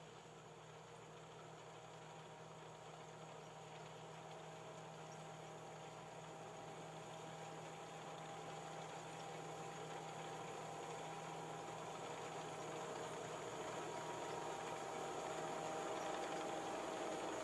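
Tracked combine harvester running while it cuts a standing crop, its engine and machinery making a steady hum that grows gradually louder as the machine comes closer.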